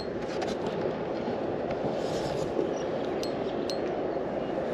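A few sharp clicks and clinks of fishing gear on a kayak, spaced irregularly, over a steady rushing noise.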